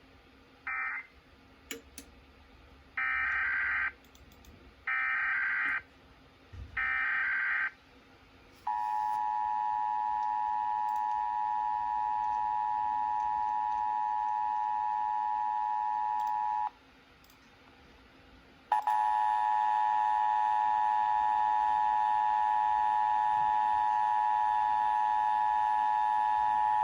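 Emergency Alert System signalling: three short screeching bursts of SAME header data, then the steady two-tone EAS attention signal for about eight seconds. After a two-second pause a second, louder steady alert tone sounds through to the end.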